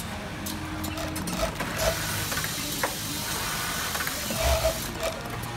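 Industrial sewing machine stitching denim in short runs over a steady workshop hum, with light clicks and a few brief louder bursts, the biggest about four and a half seconds in.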